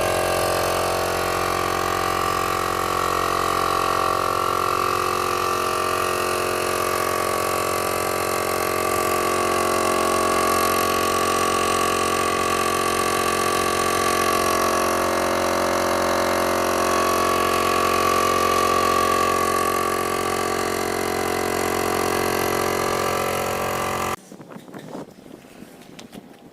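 An old blower running steadily with a constant motor drone, which cuts off suddenly about two seconds before the end.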